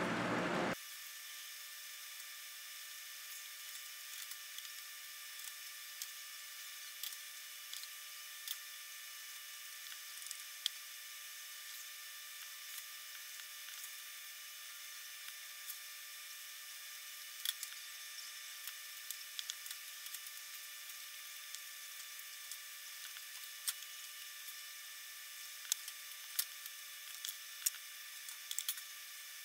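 Faint, scattered clicks and ticks of a small chisel working through the thin tabs that hold the fine panels in an aluminium astromech skin, over a steady faint hiss. The clicks come now and then, closer together near the end.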